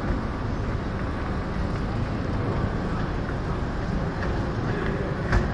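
Steady traffic and street noise of a busy city boulevard, a constant low rumble and hum. There is a single thump near the end.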